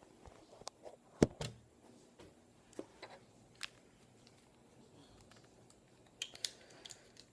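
Scattered clicks and light knocks of small objects being handled, as a cord is tried in a camera; the sharpest knock comes a little over a second in, with a few more clicks near the end.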